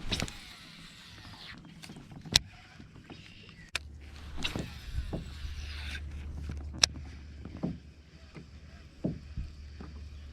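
Kayak paddle strokes swishing and dripping in the water, with a few sharp knocks of the paddle or gear against the hull, over a steady low hum.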